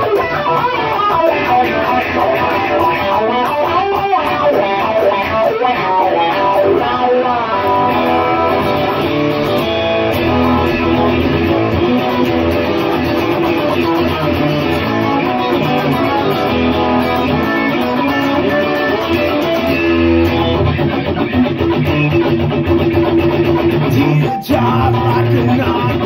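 Guitar-led music with a brief drop-out near the end.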